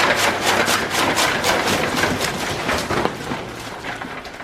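Chaff cutter chopping pineapple leaves for cattle feed: a fast, even run of chopping strokes, about seven a second, fading away after about three seconds.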